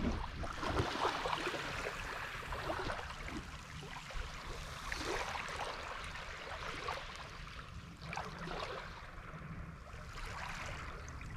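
Small waves washing in and out on a sand-and-pebble shoreline, swelling irregularly every second or two, over a low wind rumble on the microphone.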